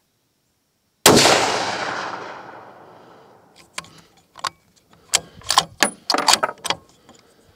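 A single shot from a Tikka T3x Tac A1 bolt-action rifle in 6.5 Creedmoor about a second in, its report dying away over about two seconds. A quick run of sharp metallic clicks and clacks follows as the bolt is worked to eject the spent case and chamber the next round.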